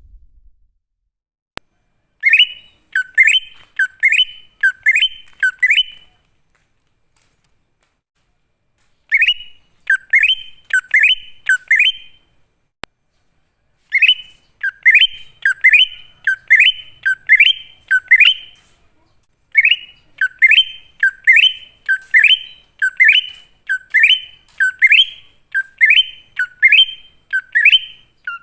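Wild cucak ijo (green leafbird) calling: a string of loud, clear, down-slurred whistles, about one and a half a second, in four runs with short silences between, the last run the longest. The recording is used as a lure call to draw other cucak ijo.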